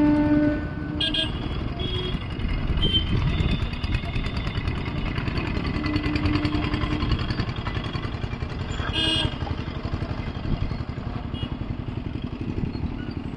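Mixed road traffic crossing an open railway level crossing: small motorcycle and auto engines running as vehicles pass, with people's voices in the background. A long held tone cuts off half a second in, and two short high-pitched sounds come about a second in and about nine seconds in.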